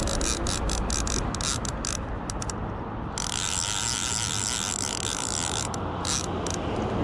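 Fly reel's click-and-pawl ratchet clicking as line moves on and off the spool while a hooked salmon is played. About three seconds in the clicks run together into a continuous buzz for a couple of seconds, then break back into separate clicks.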